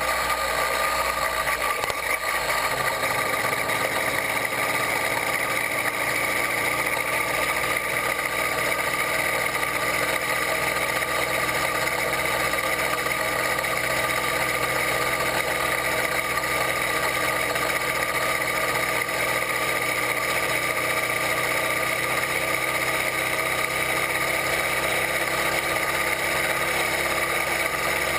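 A 66/80cc Chinese two-stroke bicycle engine kit running at a steady pitch while the bike cruises along, a constant buzz that does not rise or fall.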